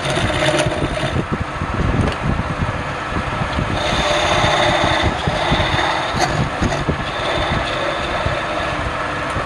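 Wood lathe running with a tool cutting into spinning palm wood: a steady machine drone under rough, uneven scraping.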